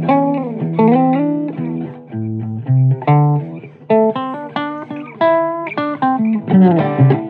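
Blues guitar music: single-note guitar lines with notes bent up and down in pitch, over low bass notes.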